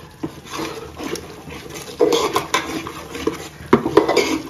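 Hot water poured into frying spring-onion masala paste in an aluminium pot, hissing and steaming, while a wooden spatula scrapes and stirs it against the pot in irregular strokes.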